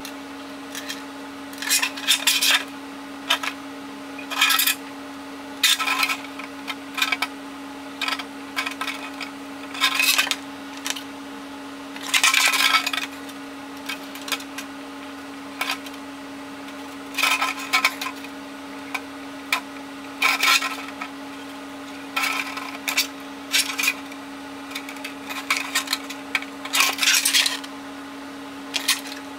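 Thin clear plastic RC car body crinkling and flexing as it is handled and turned, in irregular bursts every second or two, while its cut lines are traced with a marker. A steady low hum runs underneath.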